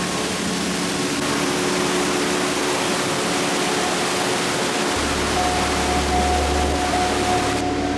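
Steady roar of Niagara Falls' water pouring down, with a few faint held tones underneath. A low hum joins about five seconds in, and the high hiss drops off suddenly near the end.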